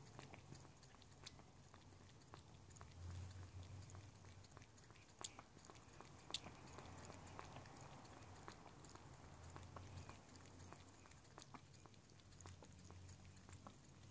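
A cat faintly lapping liquid cat soup from a saucer: soft, irregular tongue clicks and small wet smacks, a couple a little louder around the middle, over a low steady hum.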